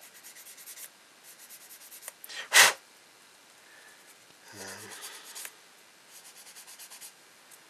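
A hobby file or sanding stick rasping on a plastic kit part in runs of quick, short strokes, cleaning off a moulding seam line. About two and a half seconds in there is one short, sharp, loud burst, the loudest sound here.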